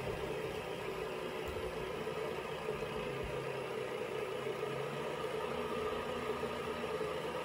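Steady mechanical hum, like a small electric motor running, with a faint low drone under it and no changes.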